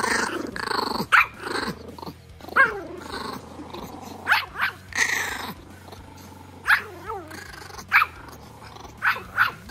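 Two Pomeranians squabbling: growling and snarling, broken by a string of short, sharp yaps.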